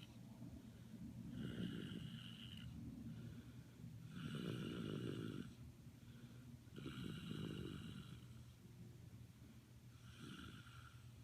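Snoring: four long, rasping snores about three seconds apart, the last one weaker.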